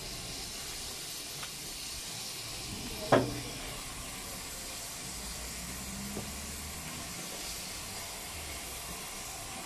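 Steam hissing steadily from beneath a Great Western Railway steam locomotive, No. 5526. About three seconds in there is one short, loud, sharp sound.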